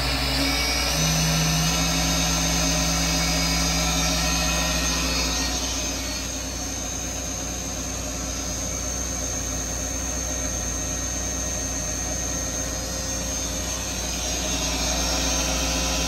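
Doosan Puma TT1800SY CNC turning center running its lower-turret live tooling: a steady high whine over a low machine hum. The pitch steps up about a second in, the lower tones drop away around five or six seconds in, and they return near the end.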